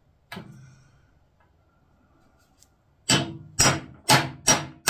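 A hammer striking a steel punch set against the steering-lock barrel in a Honda GL1000 Goldwing's steering head, with a short metallic ring after each hit: one blow, then after a pause a quick run of blows about half a second apart. The blows are knocking the lock further into the frame to break its retaining pin.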